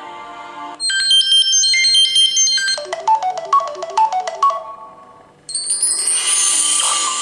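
Samsung Galaxy tablet stock ringtones played one after another. A bright, high chime melody begins about a second in, then gives way to a lower run of short notes that fades out. A new, brighter ringtone starts about two seconds before the end.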